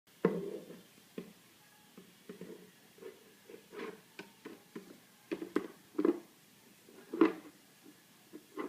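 Irregular knocks, thumps and clicks, about a dozen over several seconds, the loudest just after the start and about seven seconds in.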